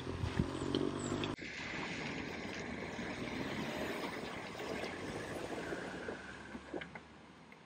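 A vehicle driving through deep flood water, its engine running with water splashing. A sudden cut about one and a half seconds in gives way to a steady rush of splashing water, which fades near the end.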